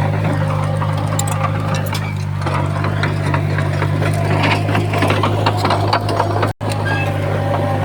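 Komatsu D51PX bulldozer's diesel engine running steadily under a constant low hum, with a dense clatter of clicks and rattles from the tracks and the stone being pushed. The sound cuts out for an instant about six and a half seconds in.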